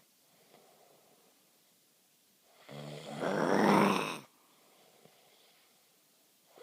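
Person snoring: one loud snore about a second and a half long near the middle, with faint breathing before and after it.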